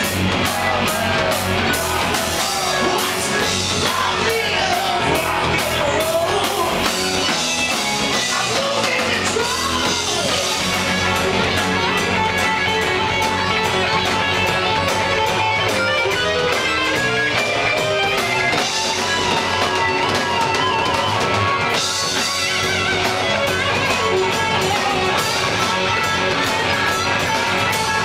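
Heavy metal band playing live and loud: electric guitar, bass guitar and drums, with a singer's vocals.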